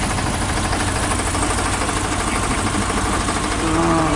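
An engine running steadily at idle close by, loud, with an even chugging pulse. A short tone rises and falls over it near the end.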